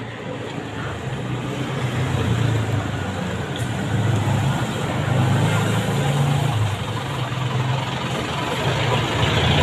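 A motor vehicle's engine running on the road close by, a steady low hum that grows louder over the first couple of seconds and then holds.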